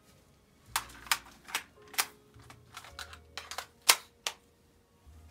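Sharp, irregular clicks and clacks of a handgun being handled in gloved hands: about a dozen, the loudest about four seconds in.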